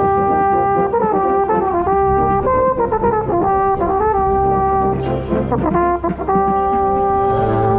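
Drum corps brass playing, led by a mellophone close to the microphone: a held note, a run of quick moving notes, another held note, a brief break about six seconds in, then a long held note, over sustained low brass.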